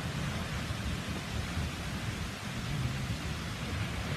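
Steady rush of Wailua Falls, a tall twin waterfall plunging into its pool, with an uneven low rumble underneath.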